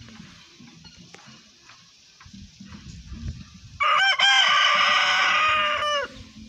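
Rooster crowing once, about four seconds in: a loud cock-a-doodle-doo about two seconds long, opening with short broken notes and ending in a long held note that drops off at the end. A faint low rumble comes before and after the crow.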